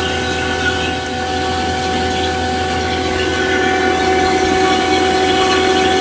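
Fieldpiece VP85 vacuum pump running steadily, pulling an air-conditioning system down into deep vacuum during evacuation: a constant motor hum with a steady whine over it, growing slightly louder about halfway through.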